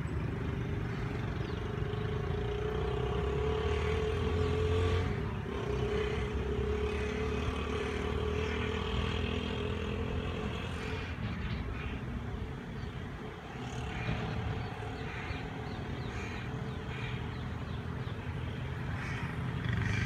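An engine running steadily, with a low rumble under a hum that slowly falls in pitch over the first ten seconds or so.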